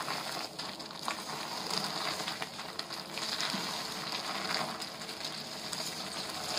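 A spoon stirring flaked corn flour into hot broth in a stainless-steel pot: many small irregular scrapes and crunches over a steady sizzling hiss, as the flour is worked into the liquid for cuscuz paulista.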